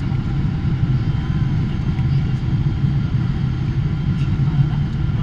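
Steady cabin noise of a Boeing 777-300ER with its GE90 engines: a loud, even low rumble of engines and airflow, with a faint steady engine whine above it.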